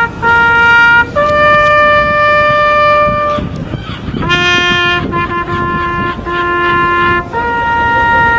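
Solo trumpet playing a slow bugle-call melody of long, steady held notes, stepping between a few open notes up and down, with the longest note held just after the start and another held note beginning near the end.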